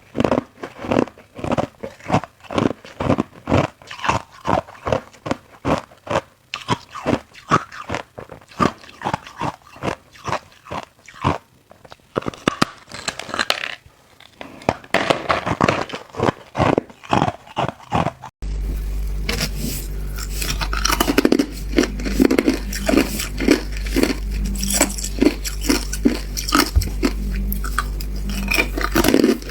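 Ice being bitten and chewed close to the microphone: a steady run of sharp, crisp crunches, about two a second. About two-thirds of the way through, the sound cuts abruptly to another take, with a steady low hum under the crunching.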